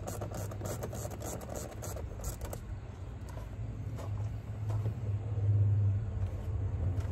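A motor vehicle's engine droning, growing louder about five and a half seconds in, then easing. Light clicks are heard during the first two seconds or so.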